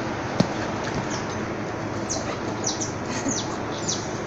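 Small birds chirping: a quick run of short, high, falling notes in the second half, over a steady background hiss. A single sharp knock about half a second in.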